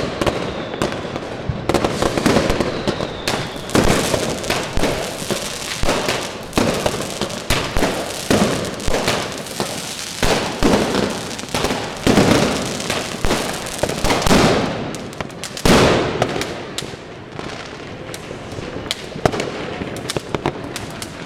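New Year's firecrackers and fireworks going off in a dense, overlapping barrage of sharp bangs, many with echoing tails. The barrage thins out somewhat in the last few seconds.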